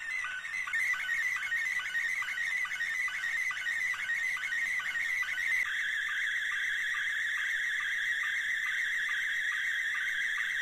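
Slow-scan television (SSTV) picture signal in Scottie 1 mode, played back from a Thomas A. Edison wax cylinder phonograph: warbling electronic tones with a rhythmic chirp about twice a second. A little past halfway the tones change to a steadier, higher warble as a brighter part of the image is sent.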